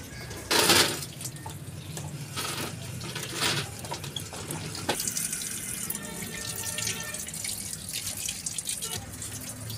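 Water from a tap splashing in loud bursts about half a second in and twice more a few seconds later, then running more steadily, as raw chicken is washed. A low steady hum runs underneath.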